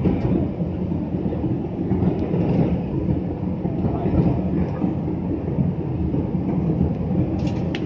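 Steady cabin rumble inside an AirAsia jet airliner, the engines and the airflow past the fuselage heard through the cabin during the descent, with a faint click or two near the end.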